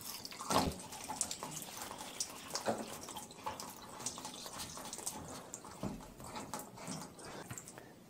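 Faint trickling and dripping of water from a washing machine's inlet hose. The water keeps running because the mains supply valve will not shut fully. Scattered small plastic clicks and taps come as the hose's plastic coupling nut is screwed onto the machine's inlet valve by hand.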